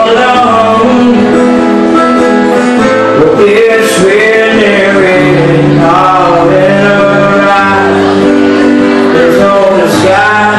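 A man singing live to his own acoustic guitar, amplified through a PA, loud throughout.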